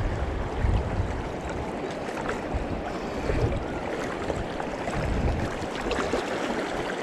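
Steady rush of a fast-flowing river current, an even wash of moving water with a low rumble underneath.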